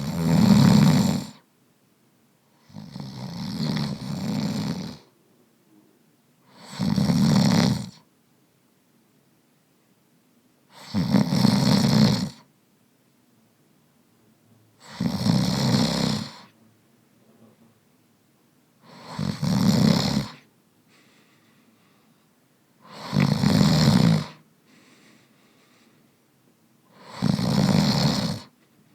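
A man snoring: eight snores, about one every four seconds, each lasting about a second. The second snore is longer and softer than the rest.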